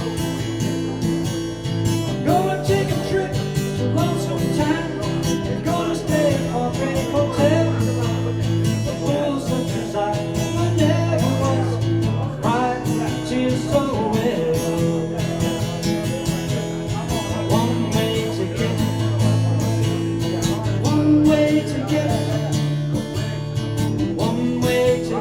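Instrumental break in a live pop song: guitar and a steady bass line, with a melody line sliding between notes above them.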